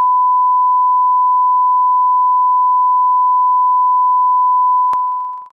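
Steady 1 kHz line-up test tone, the reference tone run with colour bars at the head of a broadcast tape. A single click sounds near the end as the tone fades out.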